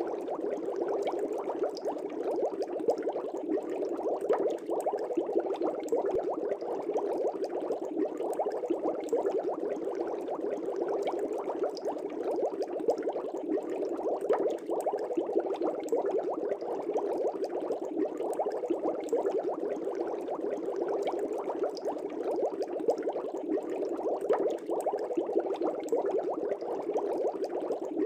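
Aquarium air bubbles rising and popping at the water surface in a fish tank, a steady dense bubbling.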